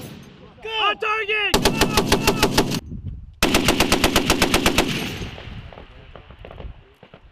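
M2 .50-calibre heavy machine gun firing two bursts of about a second and a half each, at roughly eight shots a second. The reports tail off after the second burst.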